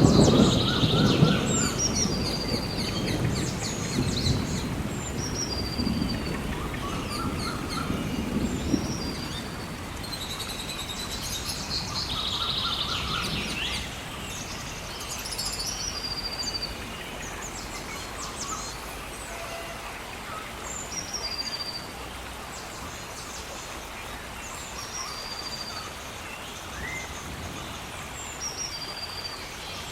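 Birds singing, short whistled phrases repeated every second or two over a steady outdoor background. A low rumble is loudest at the start and dies away after about nine seconds.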